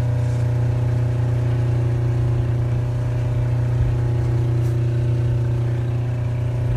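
Steady drone of a boat's running engine machinery: a loud, even low hum with several steady tones above it.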